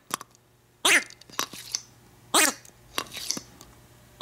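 Oshaberi Piropiro Doubutsu soft-plastic talking-animal squeeze toys squeaking as they are squeezed: two main squeaks that fall in pitch, about a second and two and a half seconds in, with a few smaller squeaks between and after.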